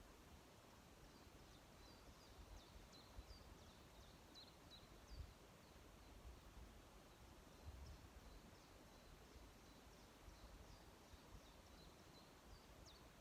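Faint high-pitched chirps of small songbirds, many short calls in quick scattered runs, over a quiet outdoor background with low rumbling.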